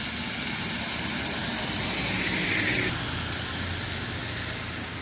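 Cars driving past on a wet, slushy road: tyre hiss over a low engine rumble swells as a car passes close, then cuts off suddenly about three seconds in, leaving steadier, quieter traffic noise.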